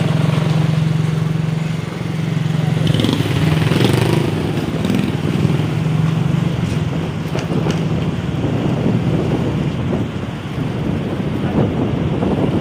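Motorcycle engine running at low speed with a steady low hum, becoming less even in the second half.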